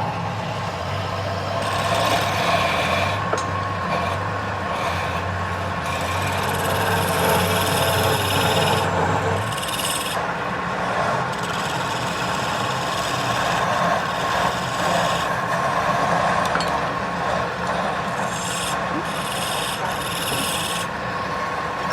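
Wood lathe running with a steady whine while a turning tool scrapes against the spinning wood in passes that come and go. A low hum under it stops about nine and a half seconds in.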